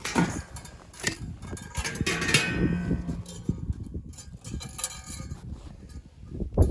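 Irregular knocks, clinks and rustling, as of objects being handled, with a short creak a little over two seconds in.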